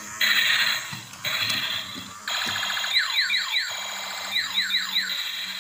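Battery-powered transforming Bumblebee toy car playing its electronic sound effects through a small built-in speaker: two short bursts of crackly noise, then a buzzing tone with two volleys of quick falling zaps, like laser shots.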